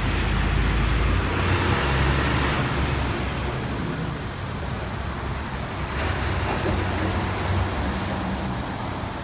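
Motor vehicle running: a steady low engine hum under a broad rushing noise. No siren is sounding.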